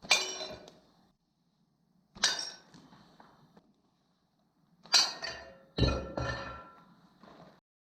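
A homemade slingshot's shots striking a hard target, each a sharp clinking hit that rings briefly. There is one hit at the start, one about two seconds in, and three close together around five to six seconds in. The last of these also lands with a dull thud.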